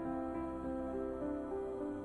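Background music: soft new-age style music with slow, sustained notes.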